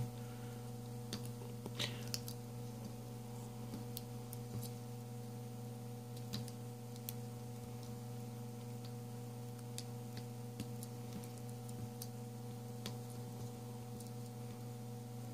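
Scattered small, irregular clicks and ticks of a soldering iron tip and wires being worked on a small quadcopter's flight-controller board while desoldering, over a steady electrical hum.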